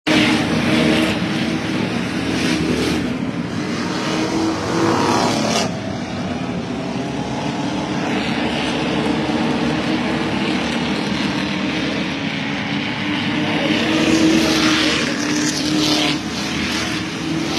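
A pack of stock cars racing on a short oval track, engines held at high revs, the sound swelling each time the cars pass close by, several times over.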